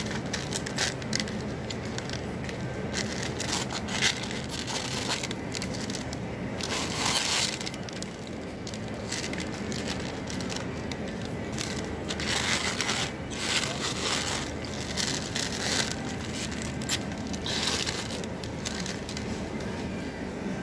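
Plastic ice-cream wrappers crinkling in several short bursts as packs are picked up and handled, over a steady low background hum.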